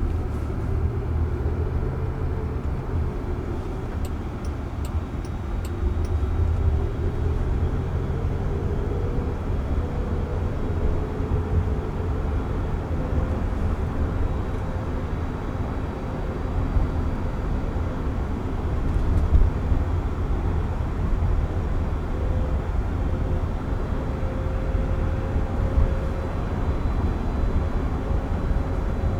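Cabin noise of a moving Waymo robotaxi: a steady low road and tyre rumble with a faint whine that slowly rises in pitch. A short run of about five clicks, roughly two a second, comes a few seconds in.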